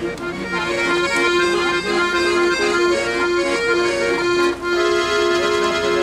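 Accordion playing an instrumental passage: a melody over held chords, with a brief break about four and a half seconds in.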